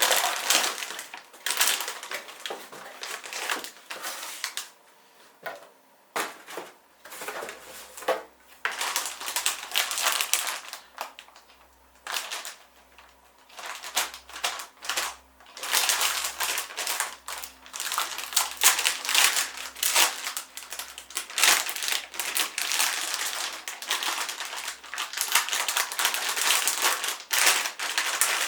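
Hands handling computer hardware and its packaging: irregular bursts of clicking, clattering and crinkling, pausing briefly about five seconds and about twelve seconds in.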